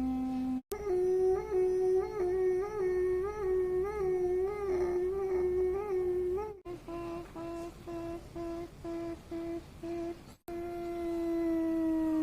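A person humming in sustained nasal notes, split by abrupt cuts. First comes a held note that wobbles up and down in regular pulses, then a quick run of short repeated hums at one pitch, then a long hum sliding slowly downward.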